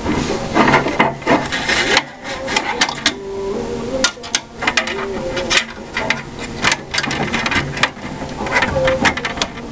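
Hard computer parts being handled and fitted: a run of irregular sharp clicks and knocks with scraping and rubbing between them.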